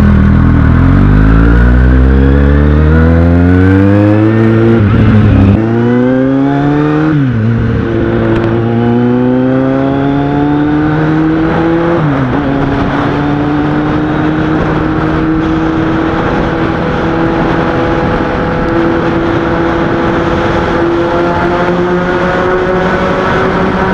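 Kawasaki Z750 inline-four motorcycle engine through an aftermarket Yoshimura exhaust, accelerating hard through the gears in a tunnel. The pitch rises and drops sharply at three upshifts, about 5, 7 and 12 seconds in, then holds a high, slowly climbing note at steady speed.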